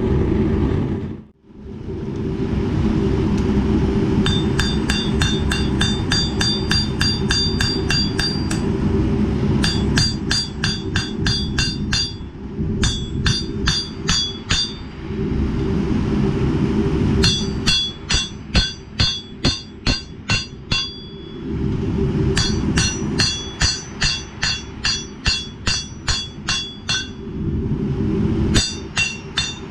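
Hand hammer striking a 1095 high-carbon steel knife blade on a railroad-track anvil, in quick runs of about three to four blows a second with short pauses between. Each blow leaves a bright metallic ring. The smith is flattening the hammer marks out of the blade before grinding. A steady low rumble runs underneath.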